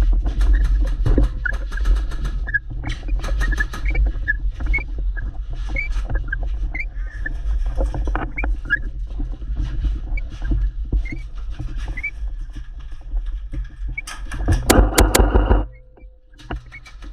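Airsoft gameplay sounds: scattered sharp cracks of airsoft guns firing over a steady low rumble of wind on the microphone. Near the end comes a denser, louder stretch that cuts off suddenly.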